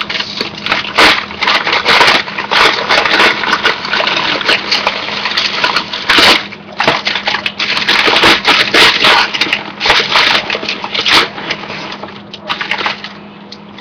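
Popped popcorn rustling and rattling in a paper microwave pop-up bowl as it is stirred by hand, a dense, irregular rustle with many sharp crackles that dies down near the end.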